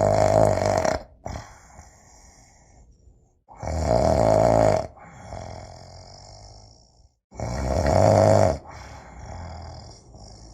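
A person snoring heavily: three loud snores about every three and a half to four seconds, each lasting around a second, with quieter breaths between them.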